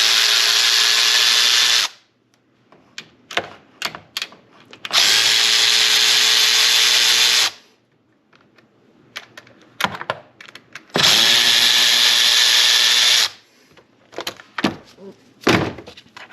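Cordless power driver spinning out three fasteners one after another: three steady whining runs of about two and a half seconds each, with small clicks and knocks of handling between them.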